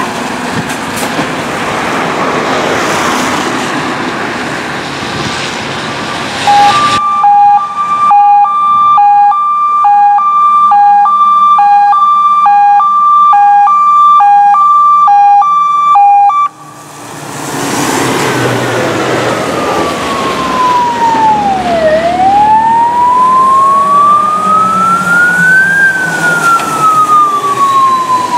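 Fire engines passing on an emergency run. At first there is a loud rush of truck engines and tyres. Then comes a two-tone hi-lo siren, alternating between a low and a high note. After a break about halfway through, a slow wail siren sweeps down, up and down again over a diesel truck engine.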